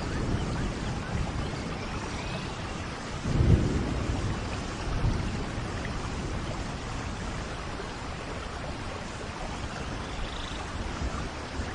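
Steady tropical rain falling, with a low rumble of thunder swelling about three and a half seconds in and a weaker one just after. Faint bird calls come through the rain near the end.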